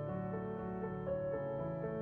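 Soft background music led by piano or electric keyboard, a slow melody of held notes.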